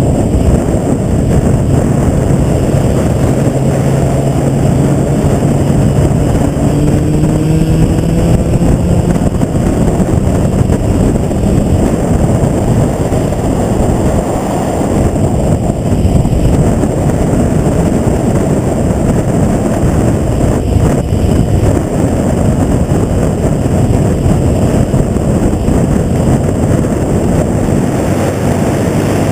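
A motorcycle riding on the road: heavy wind rush with the engine's hum underneath, its pitch rising for a few seconds early in the ride as it speeds up.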